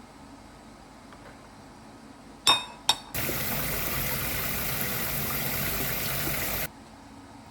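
Two short glass clinks, then water running steadily into a container for about three and a half seconds, starting and cutting off abruptly.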